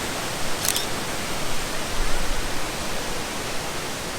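Steady rushing of a large waterfall, with a brief click just under a second in.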